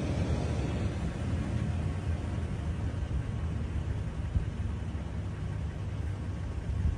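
Wind buffeting the phone's microphone outdoors: a steady, fluttering low rumble with a faint hiss above it.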